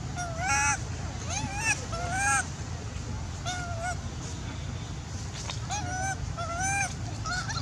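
Baby long-tailed macaque crying: a string of short, high-pitched, arching coos, about seven in the span, each under half a second, over a steady low background rumble.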